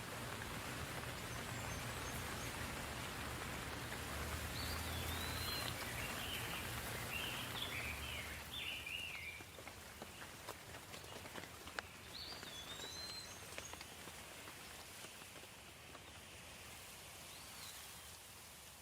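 Steady soft rain falling, a little heavier in the first half, with a few scattered drop ticks. A bird calls over it: short curved whistles several times and a quick twittering phrase in the middle.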